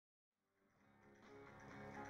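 Music fading in from silence after about half a second, growing steadily louder.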